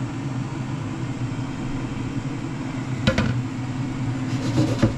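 Ninja AF451 air fryer running with a steady hum from its fan while one zone roasts. A sharp knock about three seconds in is the bowl being set down on the worktop, and a second knock comes near the end.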